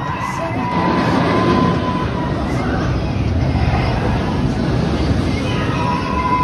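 Sky Rush steel roller coaster train running on its track: a steady rumble and rush that swells about a second in, with a high whine that comes in at the start and again near the end.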